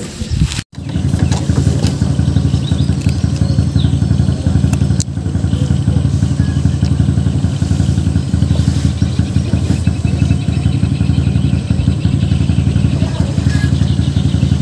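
Boat engine running steadily at a constant speed, a loud low drone with a fast even chug; the sound cuts out for an instant just after the start.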